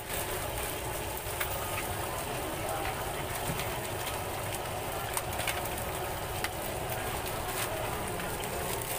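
Deep-frying oil sizzling in a wok, a steady crackling hiss, over a low rumble.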